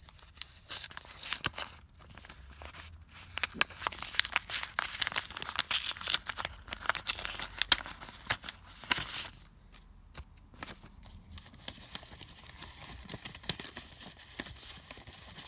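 A paper mailing envelope being torn open by hand: a run of ripping and crinkling paper for about nine seconds, after which it goes much quieter.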